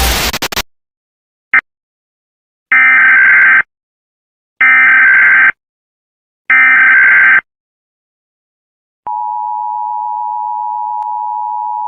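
Emergency Alert System SAME header: three loud bursts of digital data screech, about a second each and a second apart. They are followed, about nine seconds in, by the steady two-tone EAS attention signal, a 853 and 960 Hz dual tone that holds on. This announces an emergency alert, here a tornado warning.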